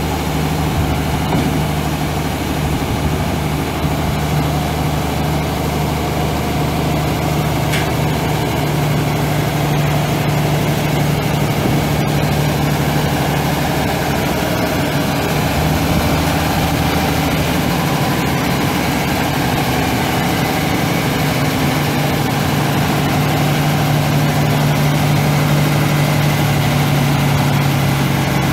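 Mack AMI 12.0-litre inline-six turbo diesel of a 2004 Mack CV713 dump truck idling steadily.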